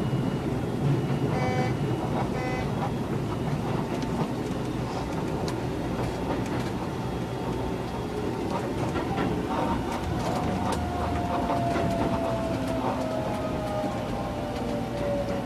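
Keisei 3000 series electric train heard from inside a carriage: wheels running on the rails with a steady rumble and scattered clicks. Two short tones sound about a second and a half and two and a half seconds in. From about two-thirds of the way through, a thin motor whine falls steadily in pitch as the train slows.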